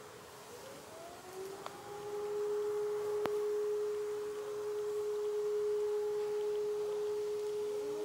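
A civil defense siren heard from a distance rises in pitch during the first two seconds, then holds a steady single tone. Right at the end, a much nearer siren starts winding up from a low pitch.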